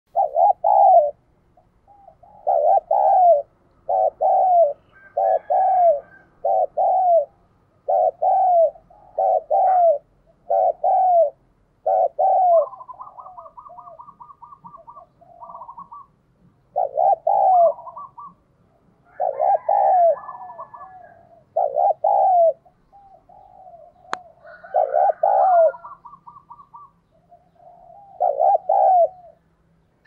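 Spotted dove cooing again and again: a lure bird giving its calling coo, in short phrases about once a second, in runs broken by brief pauses. Fainter chirps of small birds sound behind it, and there is one sharp click about 24 seconds in.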